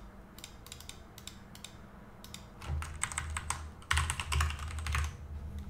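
Typing on a computer keyboard: scattered keystrokes, then dense bursts of them about halfway through and again from about four seconds in.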